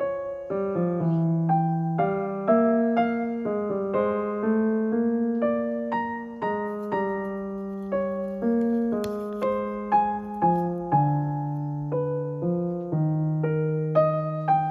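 Background piano music: notes struck one after another at an even pace, each ringing and fading.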